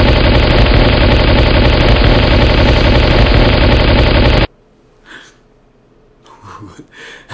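Loud played-back sound effect of mayhem: a dense, steady rumble that cuts off suddenly about four and a half seconds in, followed by a few faint small noises.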